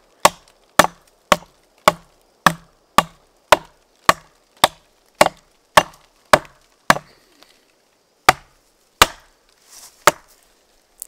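An axe chopping into the base of a dead pine branch on a standing tree. It strikes steadily at about two blows a second, pauses, lands two more blows, and then there is a short rustle near the end.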